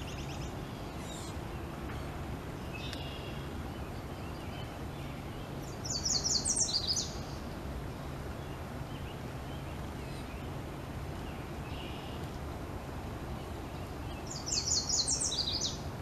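A bird calls twice, each call a quick run of high notes lasting about a second, one near the middle and one near the end, with faint chirps between. A steady low background rumble runs under it.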